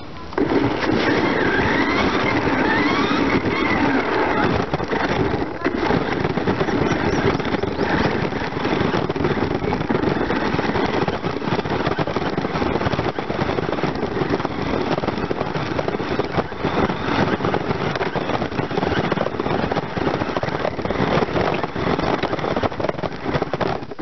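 Remote-control car driving over rough paving and a dirt path, recorded from a camera mounted on the car: a steady, dense rattle of wheels and chassis mixed with motor noise.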